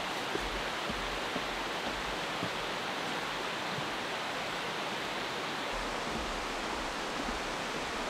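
Steady rush of a rocky mountain river flowing beside the trail, an even wash of water noise.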